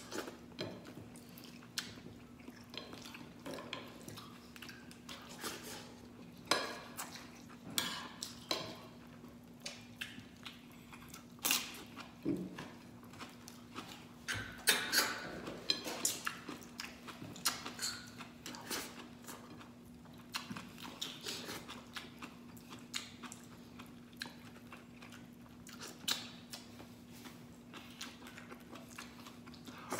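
Close-miked eating of mud crab with rice by hand: wet chewing, biting and sucking, with irregular clicks and cracks from the crab shell and fingers working on the plate. A steady faint hum runs underneath.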